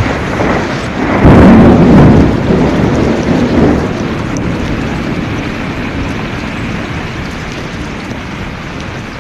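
Heavy rain and floodwater rushing down a steep street, with a loud low rumble that swells about a second in and eases off over the last several seconds.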